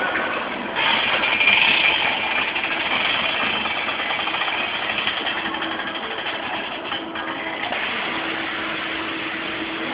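Steady machine noise of a kiddie airplane carousel ride running, with a faint low hum setting in about halfway through.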